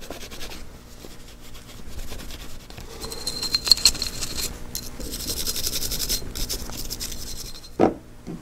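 Toothbrush bristles scrubbing the steel slide of a Walther PP pistol wet with Ballistol, in rapid back-and-forth strokes that grow stronger in the middle. A short knock near the end.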